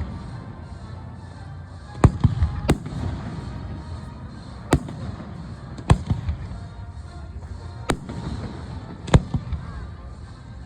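Fireworks shells bursting overhead: sharp bangs every second or two, some followed by smaller pops, over a steady low rumble.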